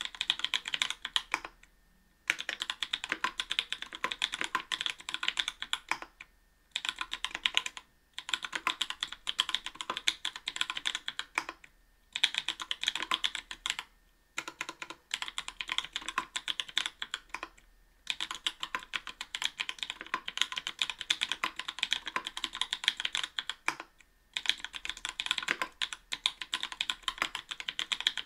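Typing on a mechanical keyboard fitted with lubed NK_ Blueberry 80 g tactile switches in an aluminium plate, with GMK keycaps: dense runs of keystrokes broken by short pauses every few seconds.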